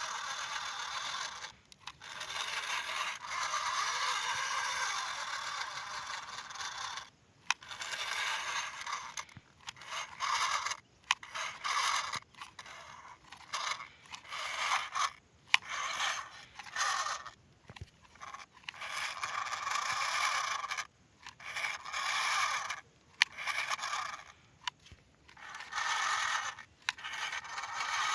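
Toy vehicles being pushed, scraping over a surface in repeated strokes of one to several seconds each with short breaks between them.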